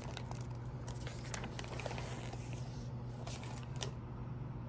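Light scattered clicks and rustling of objects being handled, over a steady low hum.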